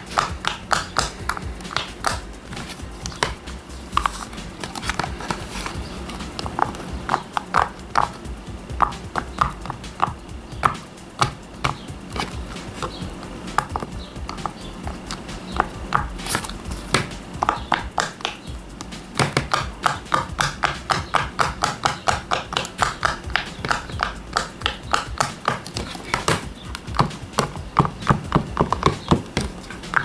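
Bubbles of a TIGARI push-pop fidget toy, rubbery bubbles set in a hard plastic frame, pressed in one after another with fingers: a fast run of loud pops. The pops thin out to a few scattered ones around the middle, then come quickly again.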